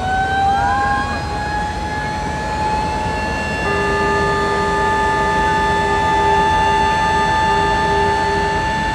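Several fire sirens winding up together and settling into a long steady wail. About three and a half seconds in, a lower steady horn-like tone joins them, over a constant rushing noise.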